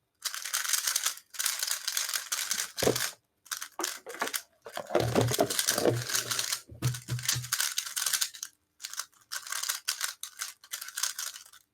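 A 3x3 speed cube being turned by hand: bursts of rapid plastic clicking and clacking of the layers, with short pauses between bursts and some duller knocks about halfway through.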